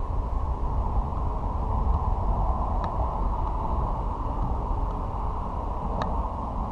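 Steady low rumbling noise, with two short sharp clicks about three seconds apart.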